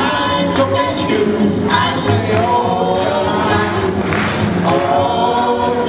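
A song with sung vocals: held, gliding sung notes over a steady bass line.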